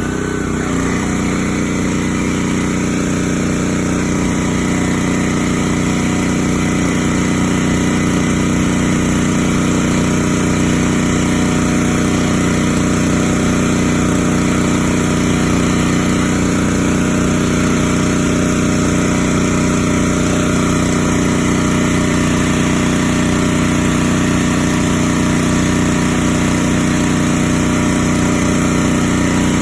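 Pressure washer's small engine running steadily at a constant speed.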